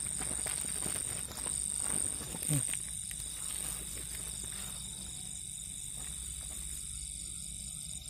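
Night insects keep up a steady high-pitched trill. In the first few seconds, the nylon cast net rustles as hands work through it to free a caught quail.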